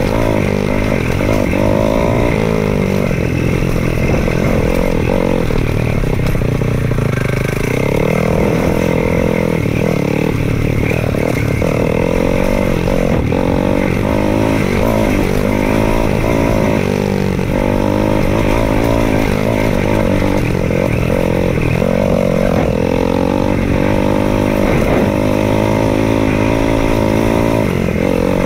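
2018 KTM 500 EXC-F dirt bike's single-cylinder four-stroke engine running under load on a dirt trail, its pitch rising and falling over and over as the throttle opens and closes.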